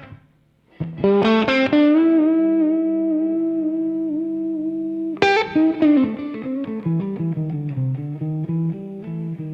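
Instrumental slow blues led by guitar. After a brief break near the start, plucked guitar phrases ring into held notes, then a second run of plucked notes comes in about five seconds in, followed by a walking line of low notes.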